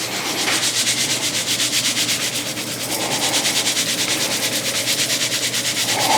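Hand-turned spice grinder grinding salt and pepper, a fast, even rasping that keeps up without a break.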